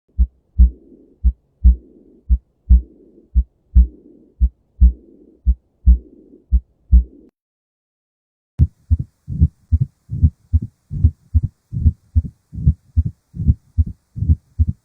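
Recorded heart sounds. First a slow heartbeat of paired beats, with a rushing murmur filling the gap after each louder beat. After a pause of about a second, a faster heartbeat of short, clean beats with no murmur.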